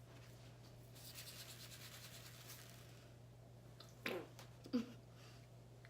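Faint scraping and rubbing for about two seconds, then two short vocal sounds with a falling pitch near the end.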